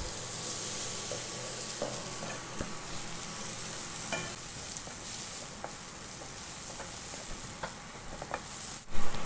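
Onion, tomato and spice masala sizzling gently on low heat in a nonstick pan, stirred with a spatula that scrapes and taps the pan now and then, with a sharper knock near the end.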